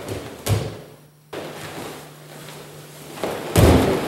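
Two grapplers in jiu-jitsu gis moving and falling on foam mats: a thump about half a second in, shuffling of bodies and cloth, then a heavy thud near the end as the partner is dropped onto his back. A steady low hum runs underneath.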